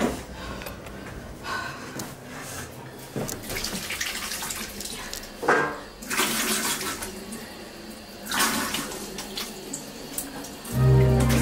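Water from a sink tap splashing as hands scoop it onto a face, in several separate bursts of splashing. Music comes in, louder, near the end.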